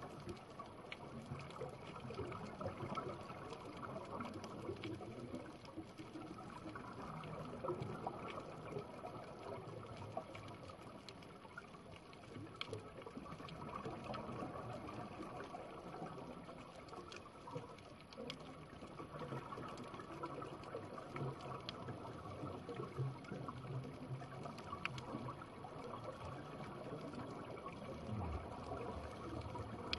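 Underwater reef ambience picked up by a camera resting on the seabed: a steady watery rushing with faint, scattered clicks through it.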